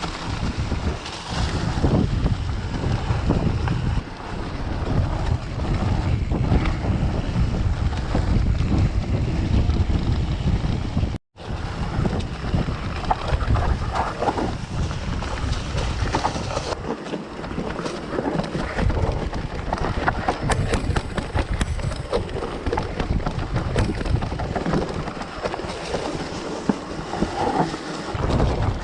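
Wind buffeting the microphone of a moving mountain bike, with scattered clicks and rattles from the bike on the trail. The sound cuts out for an instant about eleven seconds in.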